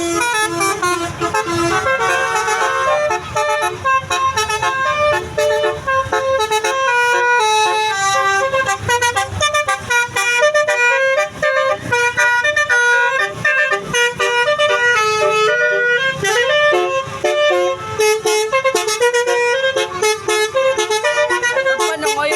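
Telolet basuri musical air horns on buses playing tunes in quick, stepped notes, with more than one melody overlapping, over a low engine rumble. A rising slide in pitch cuts through about sixteen seconds in.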